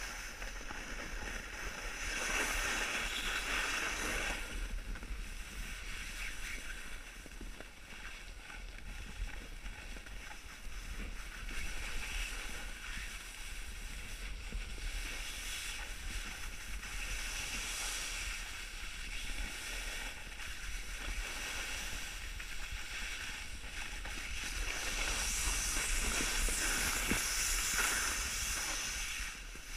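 Hiss of packed snow scraping under a rider sliding down a groomed ski slope, with wind rumbling on the microphone. The scraping swells louder twice, about two seconds in and again near the end.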